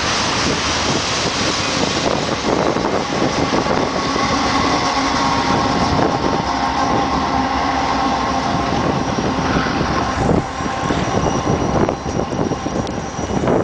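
Freight cars, double-stack container cars and covered grain hoppers, rolling past on the rails with a steady rumble and wheel clicks over the rail joints. A held wheel squeal runs through the middle.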